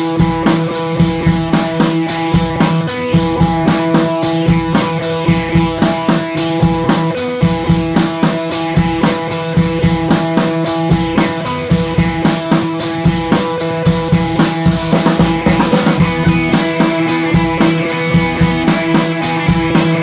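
Background music with a steady drum beat over held notes.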